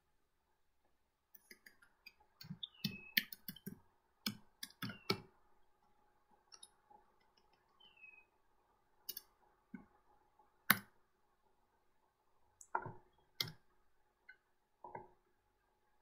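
Computer keyboard keys clicking in short irregular runs and single taps, with pauses between them.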